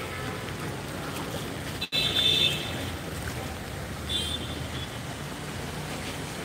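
Cars driving through a flooded street: engines running steadily under the noise of water churned by tyres. The sound drops out briefly about two seconds in, and a short high-pitched sound follows, the loudest moment; a shorter one comes near four seconds.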